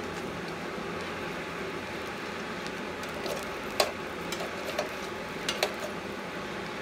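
Coal forge fire burning with a steady hiss and crackle while the coals are stirred with a poker, with a few sharp clicks of metal on coal, the loudest about four seconds in.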